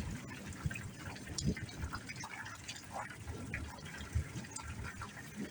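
Rain falling with many irregular close drips and splashes of water, and a few dull low thumps.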